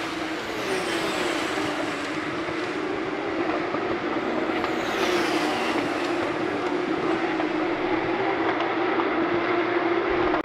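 Porsche 911 GT3 Cup (Type 992) race cars running flat out past on the straight, their naturally aspirated flat-six engines at high revs. Several cars' notes overlap, and the pitch drops as a car goes by about half a second in and again around five seconds in.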